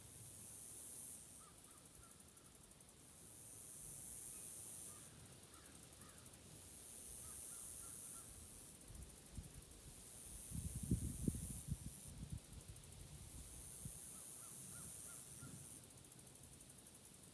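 Spring forest ambience: a very high-pitched buzzing chorus swells and fades in waves every few seconds, with faint short bird calls and trills. About ten seconds in, a brief cluster of low rumbling thumps is the loudest sound.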